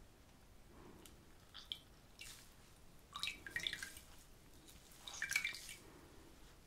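A wet cloth wrung out by hand over a red bowl, water dripping and trickling into the bowl in a few short spells.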